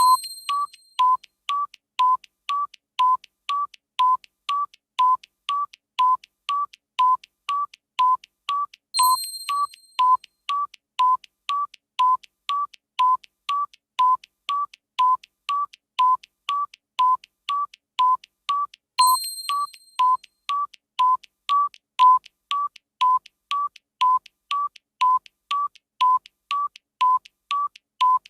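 Electronic countdown-timer beeps: short tones near 1 kHz, about two a second, alternating between a lower and a slightly higher pitch like a tick-tock. About every ten seconds a longer, brighter chime marks the interval.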